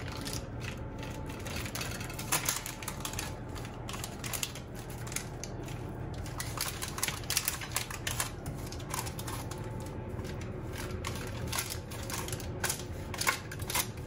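A spoon and fingers spreading lahmacun topping over dough on baking paper: irregular light clicks, scrapes and paper rustles, over a steady low hum.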